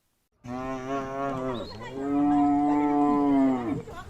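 Cow mooing: after a brief silence, a shorter moo and then a long, drawn-out moo.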